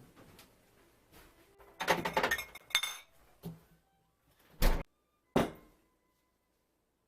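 Kitchen containers being handled: a quick run of clinks and knocks with a little ringing, then two sharp thunks as things are set down.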